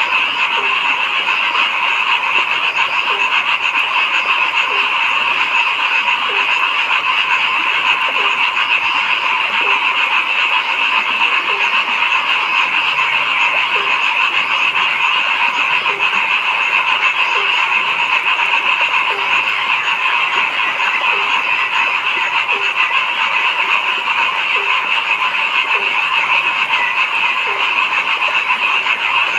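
A frog chorus: dense, steady calling with no break, and a lower croak repeating evenly about every second and a half.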